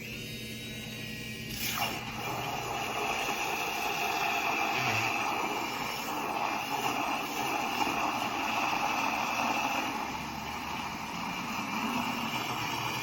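Handheld electric milk frother running steadily, a continuous whirring motor hum with hiss. It gets louder about two seconds in.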